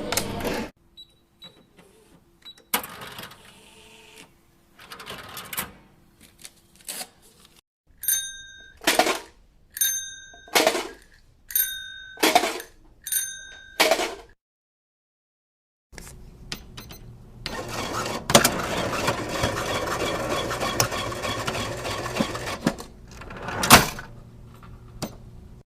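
Cash register sounds in turn: scattered key clicks, then about six short electronic key beeps, each with a clack. After a brief gap comes a longer rattling mechanical stretch marked by two loud clacks.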